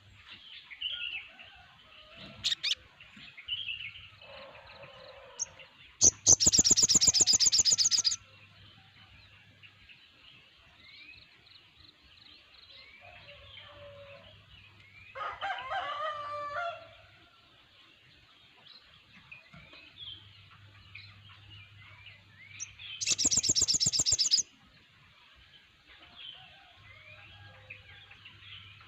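A flock of sogon (sunbirds) chirping continuously with short, high twittering calls. Two loud, fast-pulsing high trills of about two seconds each come in, one about six seconds in and one near 23 seconds. A louder cluster of calls comes about halfway.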